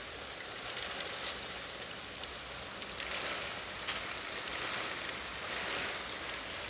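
Heavy hurricane rain pouring steadily, with fine ticks of drops hitting; it swells heavier about three seconds in and again near the end.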